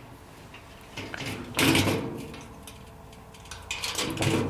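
Metal pins being pushed through the holes that join a garden cart's side panel to its base: scraping and clattering of metal on metal, in two bouts, about a second and a half in and again near the end.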